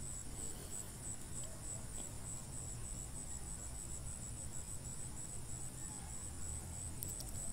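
Crickets chirping in the background: a steady, high, evenly pulsing trill. A couple of faint clicks near the end.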